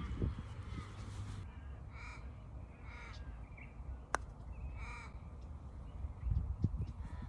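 A crow caws three times, each a short call, the first two about a second apart and the third two seconds later. Between the second and third call comes a single sharp click, the putter striking the golf ball.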